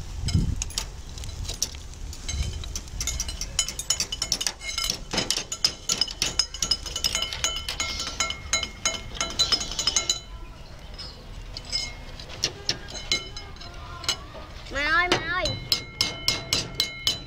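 Metal tongs clacking and snail shells clinking against each other and the grill rack as the snails are stirred and turned: rapid sharp clicks with a metallic ring. About 15 s in, a child's voice, then spoons clinking against plates on a metal table.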